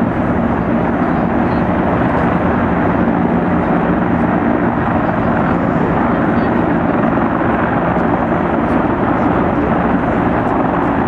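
Helicopters in flight, their rotors and turbine engines making a loud, steady noise that does not let up.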